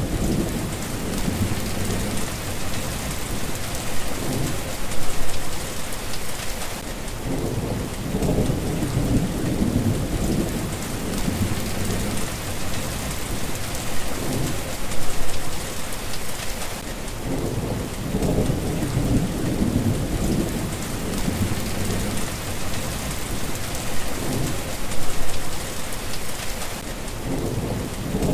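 Steady rain hissing, with low thunder rumbling in and out every few seconds.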